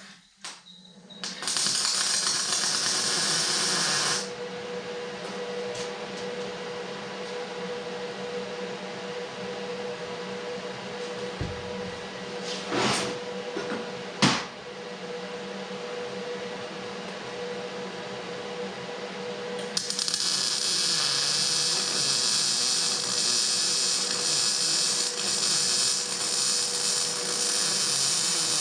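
A handheld power tool running steadily at a high pitch on metal. Its noise turns harsher and hissier while it bites in, for a few seconds near the start and again for the last stretch. Two sharp knocks come a little past the middle.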